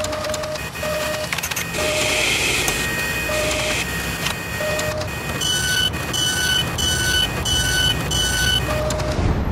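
Machine sound effects: a steady mechanical running noise with scattered clicks and short tones, then, from about halfway, a regular run of electronic beeps about twice a second that stops shortly before the end.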